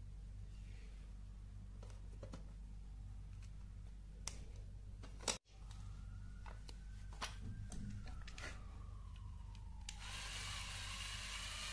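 Plastic clicks and taps as LEGO Technic parts are handled and a motor cable is plugged in, with one sharp snap halfway through. About ten seconds in, a LEGO electric motor switched on by remote starts and runs steadily with a whir, driving the geared test rig.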